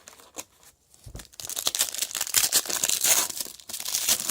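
A trading card pack's wrapper being torn open and crinkled by hand: a few light handling clicks and a low thump, then about three seconds of dense crackling and tearing.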